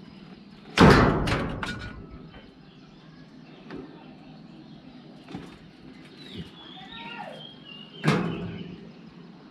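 Two loud sharp cracks, the first about a second in with a couple of quick follow-ups and the second near the end: brittle old plastic water pipe snapping as it is cut through. Faint bird chirps in the background.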